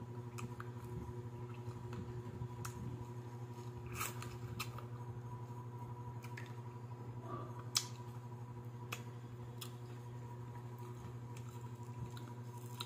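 Crispy fried chicken neck being chewed and picked apart by hand: scattered sharp crunches and crackles of the fried skin and bones, the loudest a little past the middle. A steady low hum runs underneath.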